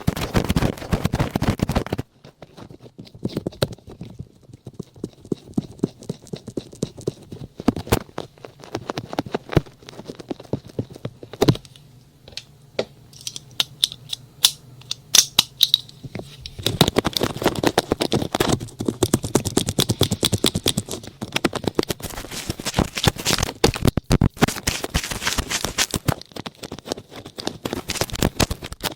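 Close-miked ASMR scratching, rubbing and clicking on a microphone, as in ear-cleaning and ear-massage sounds. Dense rubbing at first, then sparser separate clicks and scrapes, then dense continuous rubbing again from a little past the middle to the end.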